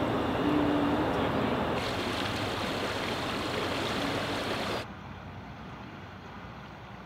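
Steady outdoor background noise, an even rushing hiss with no distinct events. It changes abruptly about two seconds in, and drops suddenly to a quieter hiss about five seconds in.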